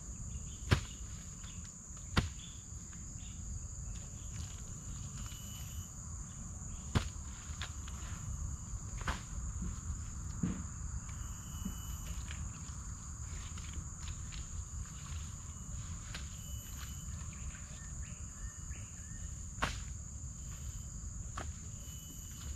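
Insects droning steadily at a high pitch, with short repeated chirps over it. A low rumble runs underneath, and a few sharp clicks or knocks come through, the loudest about a second in.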